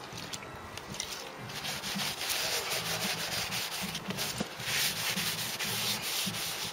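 A rag rubbing and wiping across the face of a new cast-iron brake disc, a scratchy back-and-forth rubbing that gets louder about two seconds in. The disc is being cleaned with methylated spirits to strip its thin coating of grease.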